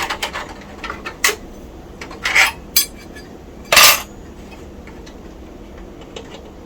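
Metal clinks and clicks from a video card and its screws and bracket being worked out of a computer case. A quick run of small clicks comes first, then a scrape, a single click, and one loud metallic clatter about four seconds in.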